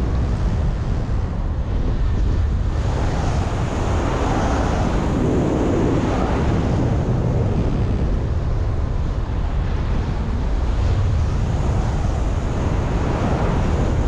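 Wind buffeting the microphone in flight under a paraglider: a loud, steady rumbling rush of air that swells a little about four to seven seconds in.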